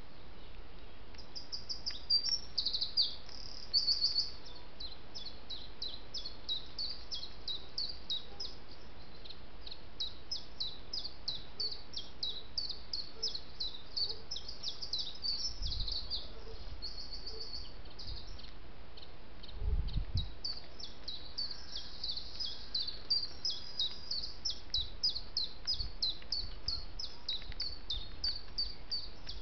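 Garden songbirds singing: quick runs of short high chirps and trills, loudest a couple of seconds in, with a short lull a little past the middle. Two brief low thumps come around the middle.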